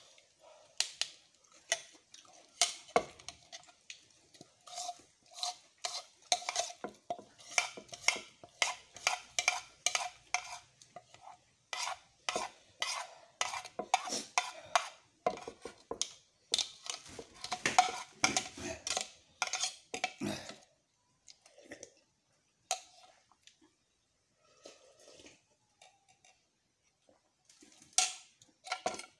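Metal spoon clinking and scraping against a plastic bowl as rice and noodles are stirred and scooped. The strokes come quickly, two or three a second, for about twenty seconds, then thin out to a few scattered clicks.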